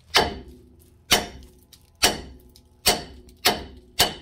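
Hammer blows on metal at a Chevrolet Trailblazer's tie rod end: six sharp, ringing strikes, coming a little faster toward the end. They are meant to shock the tie rod end's tapered stud loose from the steering knuckle without a pickle fork.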